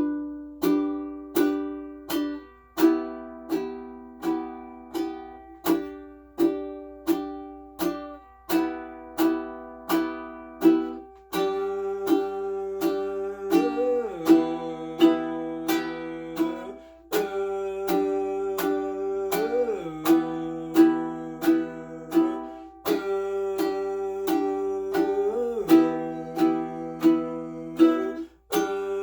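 Makala ukulele with an agathis top and mahogany back, strummed in a steady rhythm of about two strokes a second, the chords changing every few seconds. At a few points a note bends up and back down.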